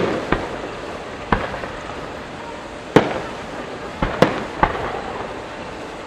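Aerial firework shells bursting: about six sharp bangs at uneven intervals, each with a short echoing tail, the loudest about three seconds in and a quick cluster of three around four seconds in.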